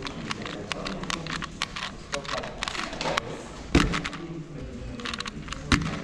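Rapid, irregular small clicks and taps of a puzzle being handled, with two louder knocks, one a little under four seconds in and one near the end; voices murmur in the background.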